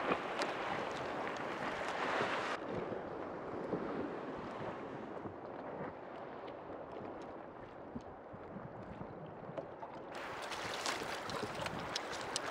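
Wind buffeting the microphone and water washing against a kayak hull, a steady rushing noise with scattered small ticks and splashes. The sound turns duller for a stretch in the middle.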